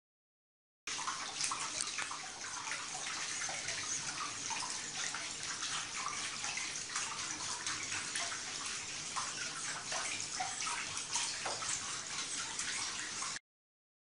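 Water splashing and churning as a legged water-running robot's feet slap the water surface, a dense run of many small splashes that starts abruptly about a second in and cuts off abruptly near the end.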